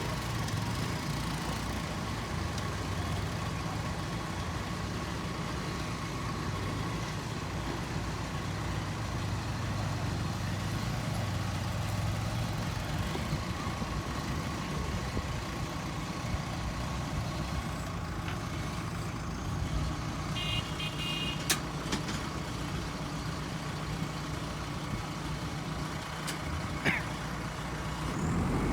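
JCB 3DX Super backhoe loader's diesel engine running steadily, a little heavier in the first half, with a few sharp clicks in the last third.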